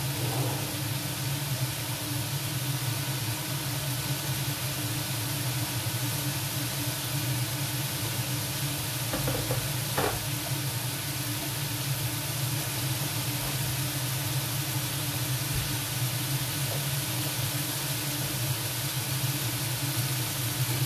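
Chicken, potato and carrot cubes sizzling steadily in a wok on an induction hob, over a low steady hum. A spoon clinks in a mug about ten seconds in.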